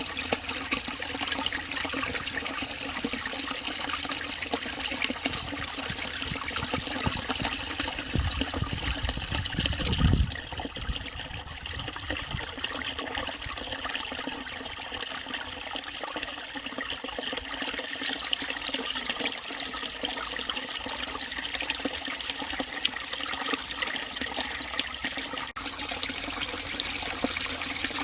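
Small forest stream trickling and murmuring steadily over its bed. A low rumble builds for about two seconds near the middle and stops suddenly, after which the water sounds a little softer.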